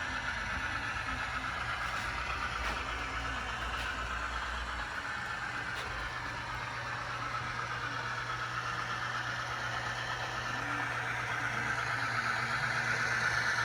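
Locomotives running along the track: a steady mechanical hum with a few faint clicks, growing louder near the end.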